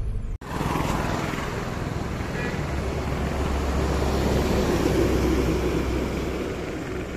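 Road traffic noise: a steady rush of vehicles, swelling as a large truck passes close by about five seconds in, then easing off.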